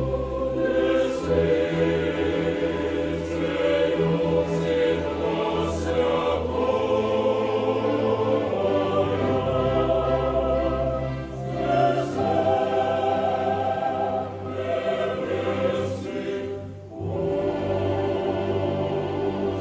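Choral music: a choir singing slow, long-held chords over orchestral accompaniment, with brief lulls between phrases.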